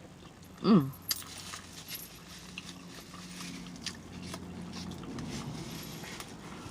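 A short, loud burp with a falling pitch just under a second in, followed by scattered wet mouth clicks and lip-smacking of chewing.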